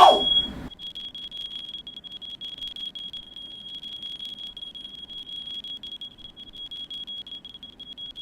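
Smoke alarm sounding one steady high-pitched tone, set off by smoke from a firework fire in the room. A loud burst of noise cuts off within the first second.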